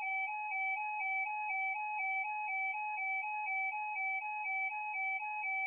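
Electronic two-tone warble: a steady synthetic tone flipping evenly between two close pitches about twice a second, like an alert or filler tone between emergency broadcast messages.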